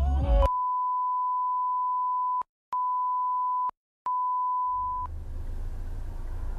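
A steady, high-pitched censor bleep, broken twice by brief silences, lasting about four and a half seconds. It gives way to the low rumble of a moving car.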